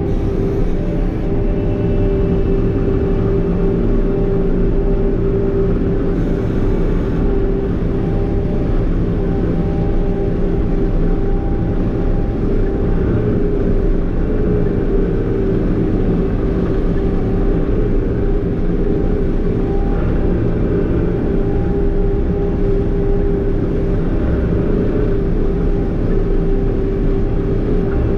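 A farm machine's engine running steadily, heard from inside its closed cab, with a constant hum over the low drone.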